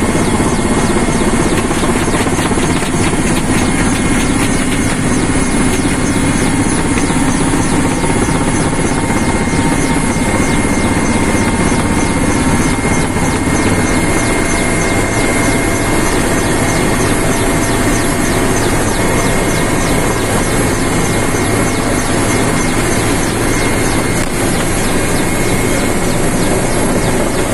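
Helicopter's engine and rotor running steadily, heard from inside the cockpit, with a steady high whine over the noise.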